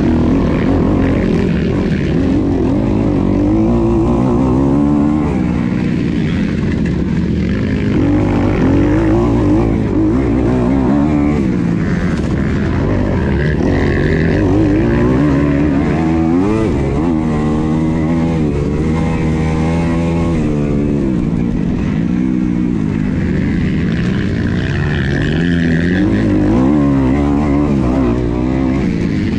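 Onboard sound of an MX2 motocross bike's engine being ridden hard on a dirt track, the revs climbing and dropping again and again as the rider opens and closes the throttle through shifts and turns.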